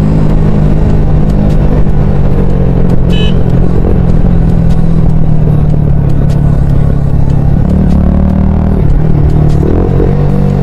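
Sport motorcycle engine running at steady revs while cruising, with wind rushing over the microphone.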